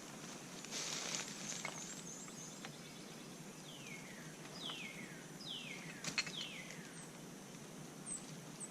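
A bird calling four times in quick succession, each call a single falling note, over steady outdoor background noise, with a brief rustle about a second in.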